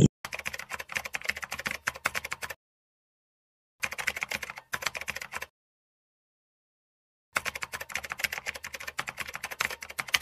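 Rapid keyboard typing clicks in three runs: about two and a half seconds, a pause, a shorter run broken once, a pause, then a run of nearly three seconds. A typing sound effect that goes with the captions being typed out.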